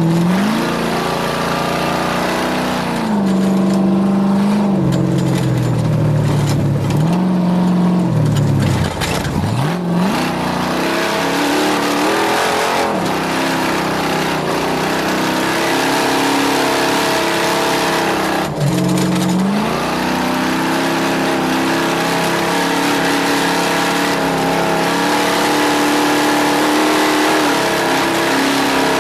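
Snore Skull Rush 250's engine under way, its revs dropping and climbing again several times in the first twenty seconds, then holding fairly steady at speed.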